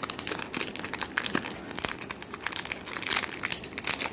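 Plastic packaging crinkling and crackling as it is handled and pulled open, a busy run of irregular sharp crackles.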